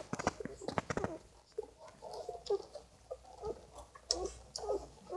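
Newborn Irish setter puppies squeaking and whimpering as they nurse, a run of short high squeals that bend in pitch, with a cluster of small clicks in the first second.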